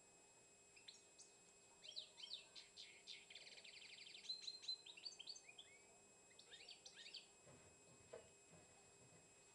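A caged songbird singing one run of quick, varied chirps that includes a fast, even trill. The song starts about a second in and stops after about seven seconds, leaving a few faint knocks.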